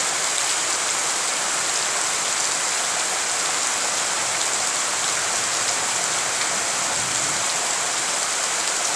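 Heavy rain falling steadily onto a courtyard covered in standing water: a dense, even hiss with faint individual drop splashes scattered through it.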